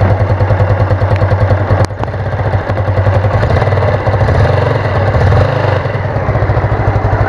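Yamaha Mio Sporty scooter's small single-cylinder four-stroke engine idling steadily and fast-pulsing, heard close up at the carburetor. The engine is running again after its carburetor was cleaned and refitted.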